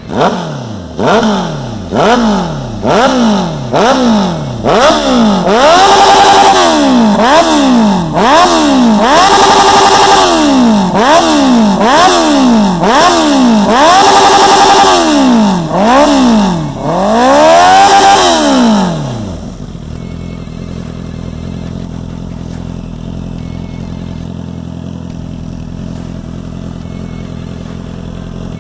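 Honda CB650F inline-four engine with a Hurricane aftermarket sport exhaust, revved loud in quick blips about once a second, some held briefly at the top. About nineteen seconds in it drops to a steady idle.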